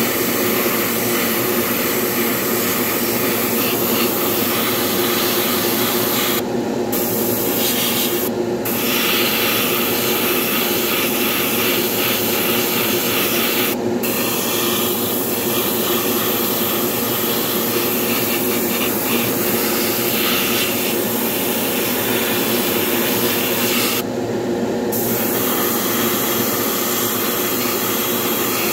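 Airbrush spraying paint, a steady hiss that stops briefly four times as the trigger is let off, over a constant motor hum.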